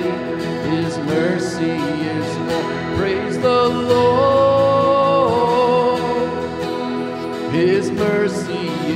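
A man singing a slow worship hymn to his own strummed acoustic guitar, holding long notes a few seconds in and again near the end.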